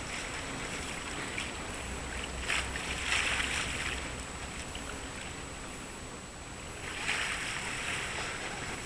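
Steady harbour-side background noise that swells and fades twice, with a faint low hum for a couple of seconds in the first half.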